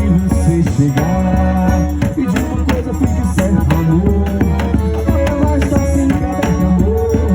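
Live forró music in an instrumental passage: a melody line over a steady bass and beat, with rattling percussion.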